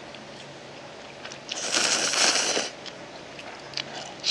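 A person slurping instant white jjamppong cup noodles: one long slurp about one and a half seconds in, followed by a few small mouth clicks near the end.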